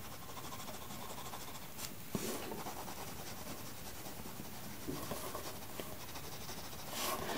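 Mechanical pencil scratching over sketchbook paper as shading is laid into a drawing: a faint, steady scratch with a few sharper strokes.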